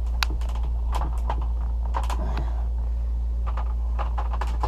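Scattered light clicks and knocks of hoses and fittings being handled, over a steady low hum.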